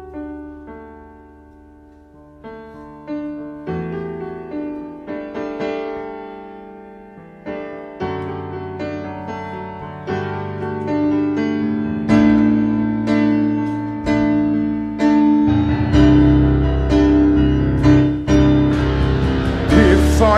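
Slowed-down piano passage from a musical-theatre song with no singing, starting soft and building steadily in loudness. Low bass notes join about three quarters of the way through.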